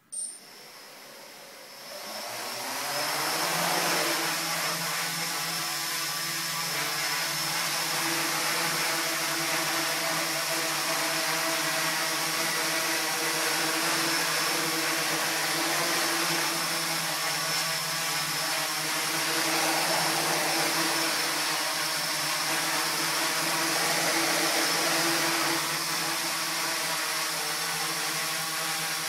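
F450 quadcopter's four brushless motors and propellers: after a brief click, they spin up about two seconds in and then run as a steady loud buzzing whir with a high thin whine as the quad hovers.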